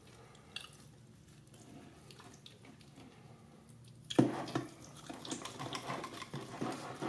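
A knife carving through a cooked tomahawk steak on a cutting board: faint at first, then a sudden start about four seconds in and continuous uneven scraping and slicing with many small ticks.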